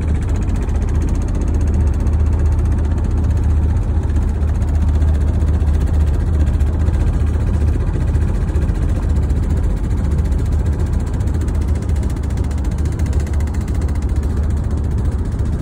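Steady road noise inside a vehicle's cabin while it is driven at about 75 mph: a constant deep rumble with a wash of noise over it.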